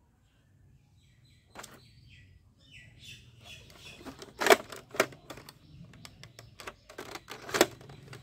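Sharp plastic clicks and knocks from a toy rifle and its dart box being handled, with a few louder clicks about four and a half, five and seven and a half seconds in.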